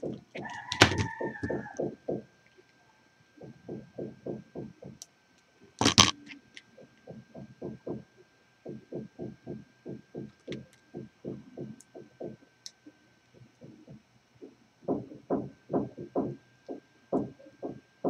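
Chicken clucking in a rapid run of short low clucks, about five a second, with one sharp clack about six seconds in.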